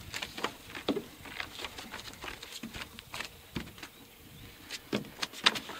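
Irregular taps, knocks and scuffs from people handling a wooden cupola and a lifting strap on the roof deck, with a few sharper clicks near the end.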